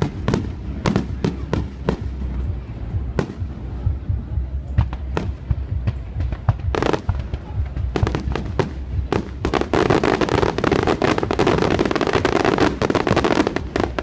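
Fireworks going off in a string of sharp bangs and pops. About ten seconds in comes a dense stretch of rapid crackling, the loudest part, which cuts off just before the end.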